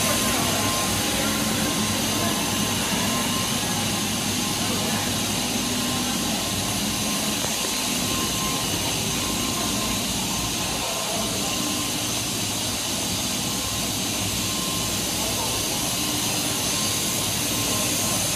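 Polypropylene hollow-sheet extrusion line running: a steady mechanical din of motors and fans with a few constant tones, a low hum and a higher whine, unchanging throughout.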